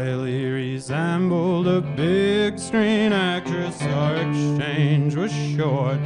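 Live band music: a man singing a long, wavering melody line over a strummed acoustic guitar.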